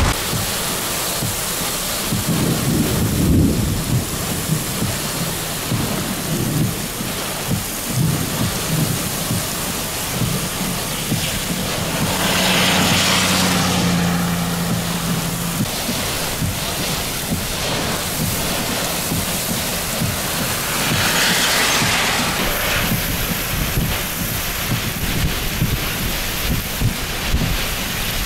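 Heavy rain and gusty wind in a severe thunderstorm, with low rumbles of thunder a few seconds in. About halfway through a vehicle passes on the wet road, its engine humming and its tyres hissing through the water.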